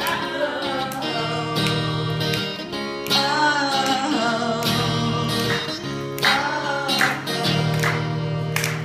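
Band music: guitars over a steady bass line, with a sung or played melody that wavers in pitch and no words.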